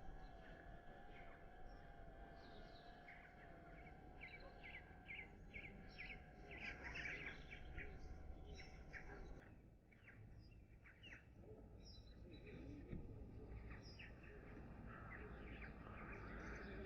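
Wild birds chirping and singing in short repeated calls, over a faint steady wavering hum that stops about halfway through.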